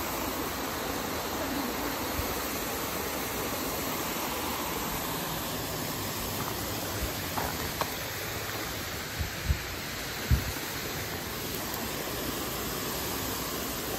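Steady rush of water pouring over a dam spillway, with a few brief low knocks in the second half.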